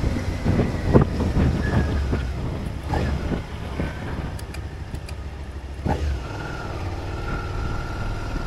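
Motorcycle riding in traffic, its engine rumbling under wind buffeting on a helmet-mounted microphone, with a few sharp knocks. The low rumble eases about six seconds in.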